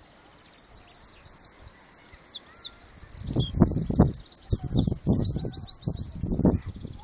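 A songbird singing a long, fast, varied song of high chirps and trills, the phrases repeated rapidly. From about halfway, low thuds come roughly twice a second beneath it.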